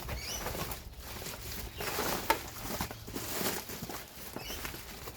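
Cardboard box and loose chainsaw parts being handled and rummaged through: irregular rustling and scraping with scattered light knocks, one sharper knock a little past two seconds in.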